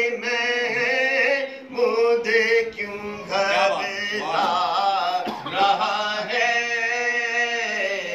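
A man's voice chanting a naat, a devotional poem in praise of the Prophet, in long melodic phrases with wavering held notes and short breaths between them.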